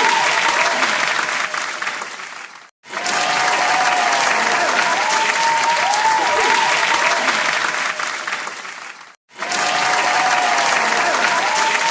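Applause sound effect: a crowd clapping, with faint tones that rise and fall above it, played as a loop of about six and a half seconds. The clapping fades out and cuts to silence twice, each time restarting at once.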